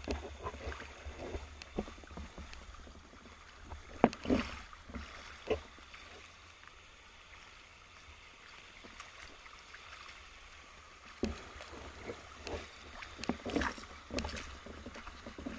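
Water movement heard underwater: a steady low rumble with scattered clicks and knocks, one sharp knock about four seconds in and a run of them near the end.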